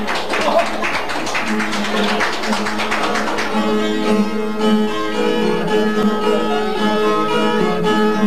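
Brazilian viola played alone between sung improvised verses, the instrumental interlude of a repente. Quick strummed strokes for the first few seconds, then ringing plucked notes.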